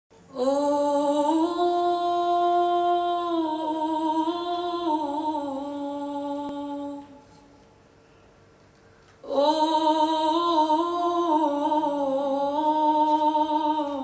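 Woman's voice singing long, wordless held notes with vibrato, unaccompanied. There are two phrases, with a pause of about two seconds between them.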